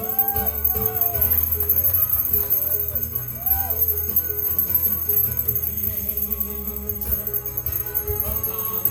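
Jingle bells shaken continuously along with live gospel music, over held bass notes, during an instrumental passage of the song. In the first few seconds a few pitched notes slide up and back down above the band.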